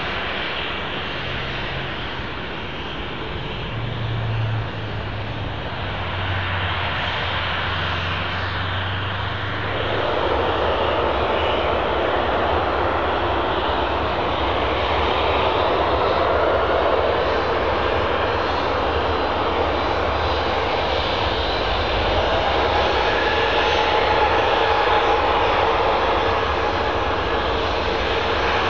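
Boeing 737-800 BBJ2's CFM56-7B turbofan engines running at taxi power. A steady jet rush that grows louder about ten seconds in, with a faint whine later on.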